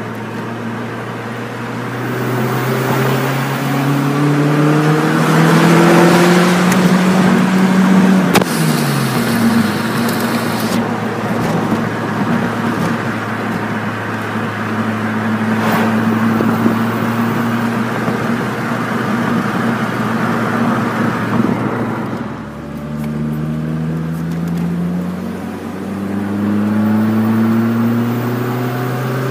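1998 Mitsubishi Eclipse GS's four-cylinder engine, fitted with a cold air intake and a stainless header-back exhaust, pulling on the road: its note climbs under acceleration for several seconds, drops back, holds steady at a cruise, then climbs again near the end.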